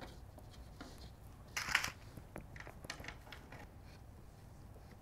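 Faint small clicks and one short scrape about one and a half seconds in: screws being hand-started into play-kitchen panels and turned with a Phillips screwdriver.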